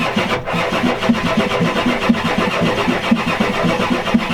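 Ford 7.3L IDI V8 diesel turning over on the starter in an even, rhythmic chug, about four or five pulses a second. It is being started on ether with the glow plugs disconnected and does not fire.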